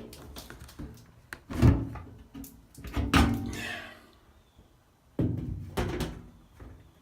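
Several heavy thunks and knocks as the washing machine's loose top panel and the wooden stabilizing blocks inside are lifted and shifted. The loudest thunk comes about a second and a half in.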